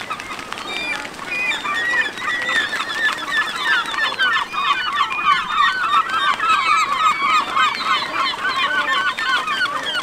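A nesting colony of gulls and cormorants calling, many short cries overlapping at once, growing busier about halfway through.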